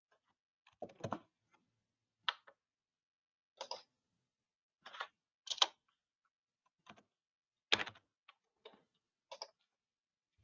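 Faint computer keyboard keystrokes and mouse clicks: about a dozen separate, irregularly spaced clicks with silence between them.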